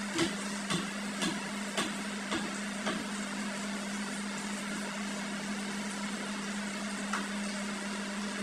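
A metal spatula tapping against a frying pan, six sharp taps about twice a second over the first three seconds and one more near the end, over a steady hiss of frying and a low hum.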